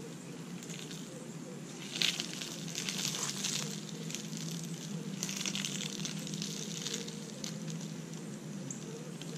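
Radio-controlled scale crawler truck driving over dirt and dry leaves: a steady hum from its motor and gears, with crackling crunches of leaves under the tyres, loudest about two seconds in and again around five to seven seconds.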